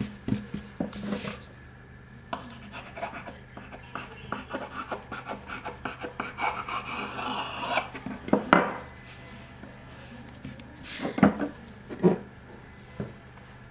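Hands rubbing and smoothing a thin sheet of rolled dough on a floured board, then a kitchen knife drawn through the dough with a scraping against the board. A few sharp knocks follow in the second half.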